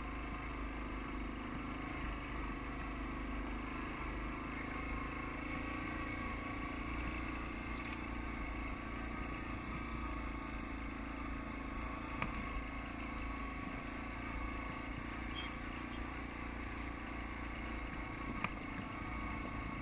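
ATV engine running steadily under load as the machine climbs a rough, rocky hill trail, with a couple of brief knocks about twelve seconds in and near the end.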